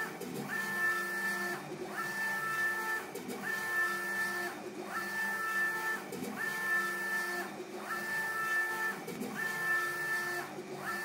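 UV flatbed inkjet printer's print-head carriage sweeping back and forth across the bed, with its UV curing lamps lit. Each pass gives a steady mechanical whine, broken by a short pause at each turn, about every one and a half seconds: some seven passes in all.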